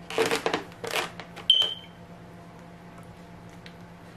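A plastic fork scraping and rustling against a styrofoam cup and clamshell box as pieces of meat are forked out. The handling ends about a second and a half in with a sharp click and a short high squeak, and only a faint steady hum remains.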